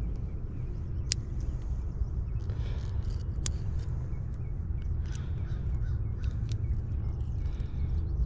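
Wind buffeting the microphone as a steady low rumble, with a few sharp clicks, the clearest about a second in and about three and a half seconds in.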